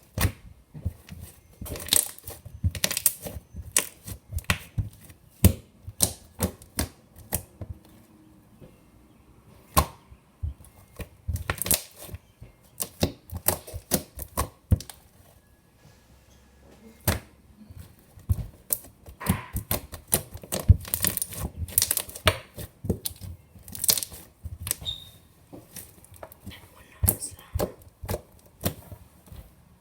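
Fluffy slime being squeezed and worked by hand, giving irregular clusters of sharp clicks and pops as trapped air bubbles burst.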